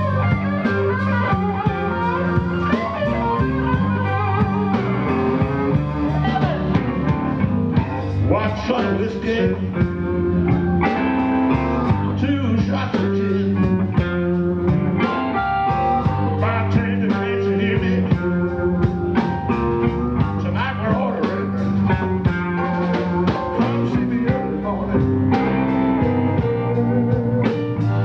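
Blues played on guitar: a continuous stream of picked notes and chords, with some bent notes.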